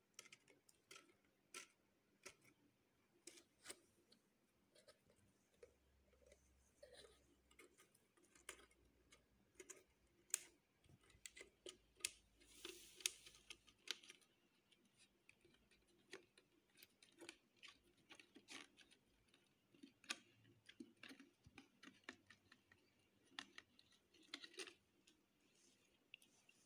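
Slime being mixed and squeezed, making irregular sticky clicks and pops, several a second, with a denser run of crackling about twelve seconds in.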